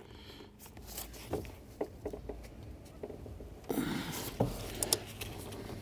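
Small plastic clicks and handling noises from ignition coil connectors being unlatched by gloved hands, with a short rustle about two-thirds of the way through.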